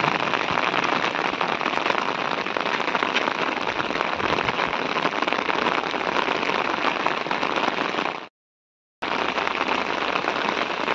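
Steady rain falling, an even hiss and patter of drops on a wet road and the vegetation around it. The sound cuts out completely for under a second about eight seconds in.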